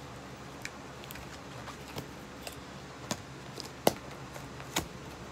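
Fingernails picking and prying at a stiff cardboard advent calendar door: scattered sharp clicks and scratches, the loudest just before four seconds in.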